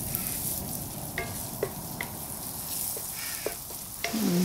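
Chopped garlic sizzling in hot oil in an iron kadai, a wooden spatula stirring it and scraping the pan with a few light clicks. A brief, louder voice-like sound cuts in near the end.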